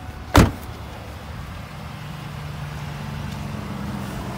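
A single loud slam about half a second in, a van door being shut, followed by a steady low hum.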